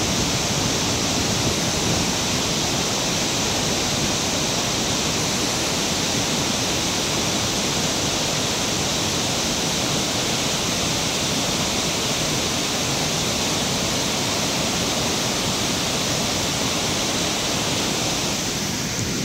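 Large mountain waterfall and its boulder-strewn torrent in full flood: a steady, even rush of falling and churning water.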